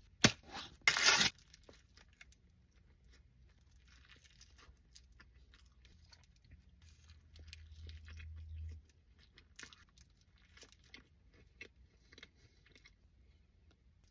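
Close-miked eating of a burrito: a loud bite about a second in, then chewing with many small wet clicks, and a low rumble for a few seconds past the middle.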